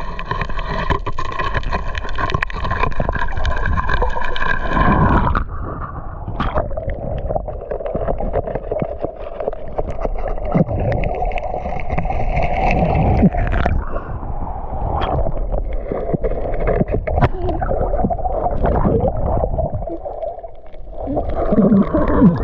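Muffled underwater sound picked up by a submerged camera: water gurgling and sloshing with a steady droning hum and scattered knocks.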